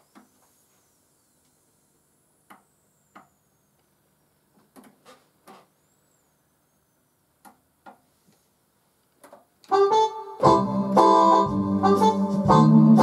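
A few faint clicks as buttons on the Orla Compact Theatre organ's control panel are pressed. About ten seconds in, the organ starts playing a fox trot with both manuals and a steady bass beat.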